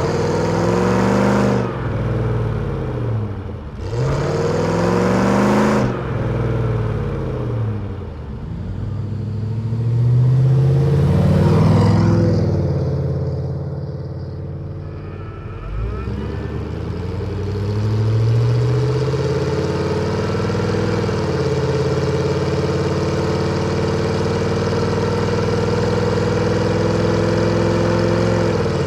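Jeep Grand Cherokee 4.7-litre V8 through a Magnaflow exhaust, revving up and falling back about four times, its pitch rising and dropping in smooth swells. In the last several seconds it settles into a steady, even run.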